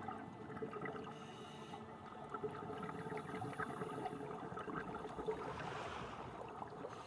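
Continuous splashing and trickling water, full of small crackles, with a short swell of hiss about six seconds in.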